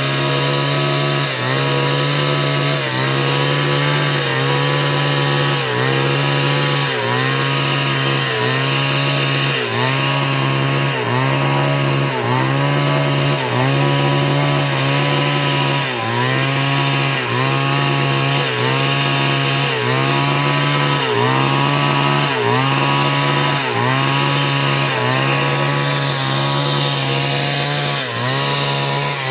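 Chainsaw engine running under load while cutting, its pitch dipping and recovering regularly about every three-quarters of a second.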